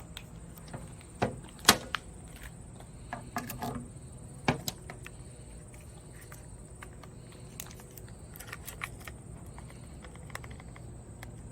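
Sharp clicks and knocks of a flashlight mount being slid and fitted onto a rifle scope's accessory rail. There are a handful of them in the first five seconds, two standing out, followed by lighter ticks of handling.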